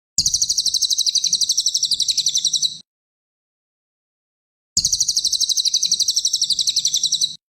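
Cililin songbird song: two bursts of rapid, high-pitched repeated chirps, about a dozen notes a second, each burst about two and a half seconds long with a silent gap between.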